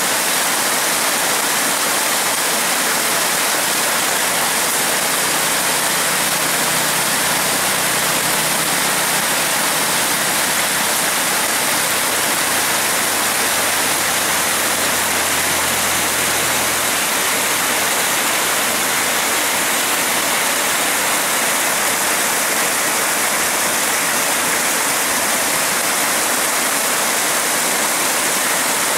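Muddy floodwater rushing in a fast torrent, a steady, even rushing noise. A faint low hum sits under it through the middle stretch.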